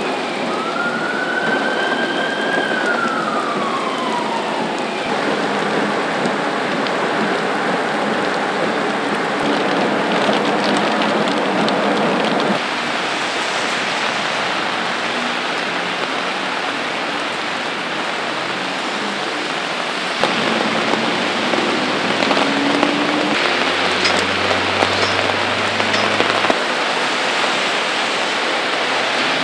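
Steady heavy rain falling on pavement and cars. In the first few seconds a siren wails, holding high and then sliding down in pitch.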